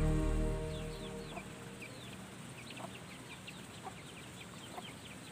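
Background music fading out over the first second or so, leaving chickens: many short, high, falling peeps several times a second, with a few lower clucks.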